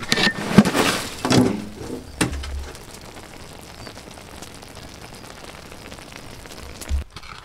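A large metal lid heaped with ash and charcoal is lifted off a big cooking pot: a rush of crackling and scraping with a few sharp metal knocks in the first two seconds, then a fainter steady hiss.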